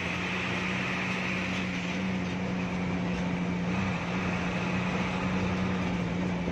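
Hino AK3HR Ranger bus's diesel engine running at a steady cruise, heard from inside the cabin over a constant road and tyre noise.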